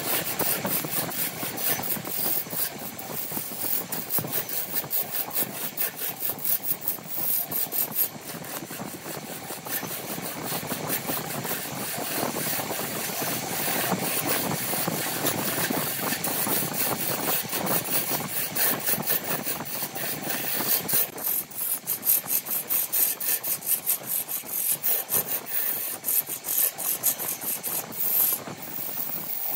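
Wood lathe running while a gouge cuts a spinning wooden cup blank: a continuous rasping scrape of steel on wood. The cut becomes choppier in the last third.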